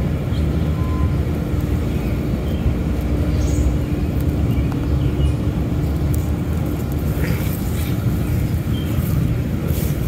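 Steady low engine-like rumble with a steady hum over it, even in level throughout.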